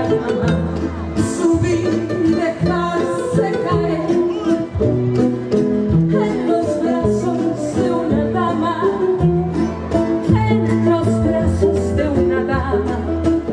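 Live son jarocho band playing: a strummed small guitar, a cajón and a jingling pandero keep a steady rhythm while a woman's voice sings over them.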